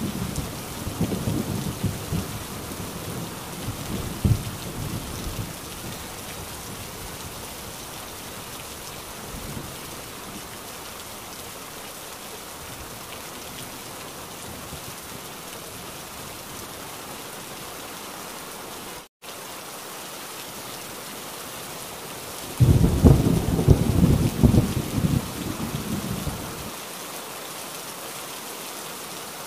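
Heavy rain falling steadily, with a rumble of thunder fading away over the first few seconds. A little past the middle the sound cuts out for an instant, and a few seconds later a louder thunderclap rumbles for about four seconds and dies away.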